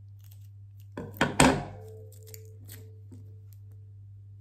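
Two sharp knocks about a second in, the second louder, followed by a faint short ringing tone: scissors and a tape roll being handled and set down on a table while a small present is wrapped. A low steady hum runs underneath.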